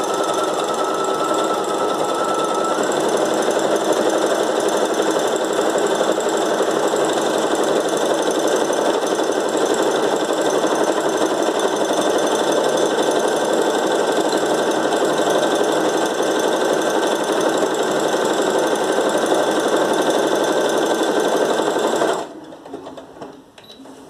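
Brother FS101 computerized sewing machine running steadily at speed, its needle stitching rapidly as it sews a decorative stitch pattern, with a high steady tone over the first few seconds. It stops about two seconds before the end, followed by light handling sounds.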